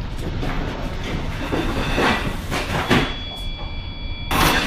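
A tanker ship rolling in a heavy sea: a low steady rumble with a few sharp knocks and rattles from the ship's structure and fittings. A thin high whine joins about three seconds in, and near the end the sound cuts abruptly to a louder rushing hiss.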